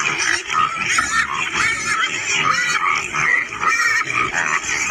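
A herd of pigs squealing and grunting, with many short calls overlapping.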